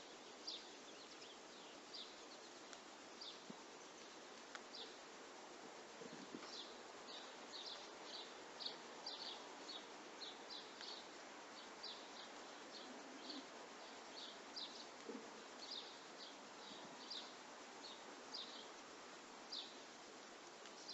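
Small birds chirping faintly: many short, high chirps at an irregular pace over a quiet steady hiss, with a couple of soft low thuds.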